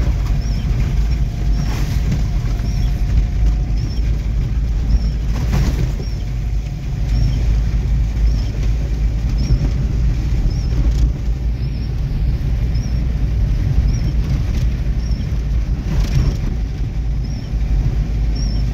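Inside a car driving slowly on a muddy dirt road in the rain: a steady low rumble from the engine and tyres, with a few knocks as the car jolts over the rough road. The windscreen wipers chirp faintly about once a second.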